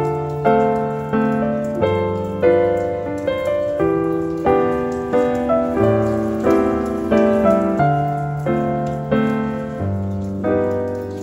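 Background piano music: notes and chords struck at an unhurried, steady pace, each one ringing out and fading before the next.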